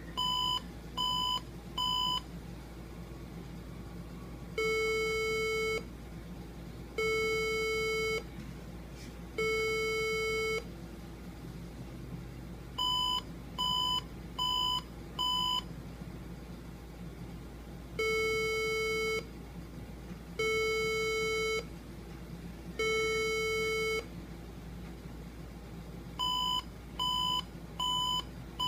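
A PC motherboard's speaker beeping at power-on in a repeating code: four short, higher beeps, then three long, lower beeps, over and over. A repeating beep pattern like this is a POST error code, the board signalling a fault found during its start-up self-test.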